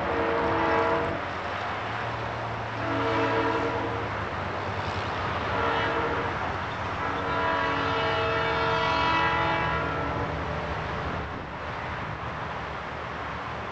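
Diesel locomotive air horn on an EMD GP38-2 sounding a chord of several notes. A long blast ends in the first second, then come a long blast, a short one and a long one of about three seconds: the long-long-short-long grade-crossing signal. A steady low locomotive engine drone runs underneath.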